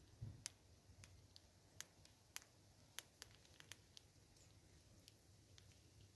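Faint, irregular sharp clicks, about a dozen, mostly in the first four seconds: Smith's bush squirrels cracking and nibbling seeds.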